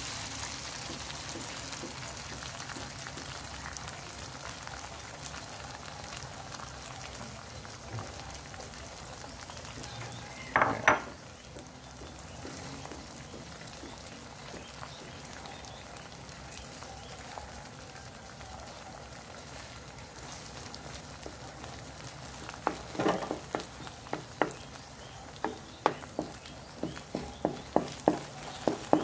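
Beaten egg sizzling as it fries in an oiled metal wok with sautéed tomato and onion, the sizzle slowly growing quieter. A wooden spatula scrapes the pan once about a third of the way in, and in the last several seconds knocks against the wok in a quickening run of taps as the egg is scrambled.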